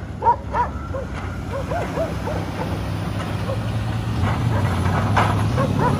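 Several dogs barking in short, spaced barks, one or two a second, over the low steady drone of a vehicle engine that grows louder in the second half.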